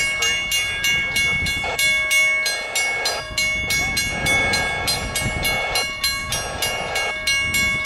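Railroad grade-crossing bells ringing rapidly and steadily, about four strikes a second, warning of the approaching Metra train. Beneath them, a lower rushing sound comes and goes.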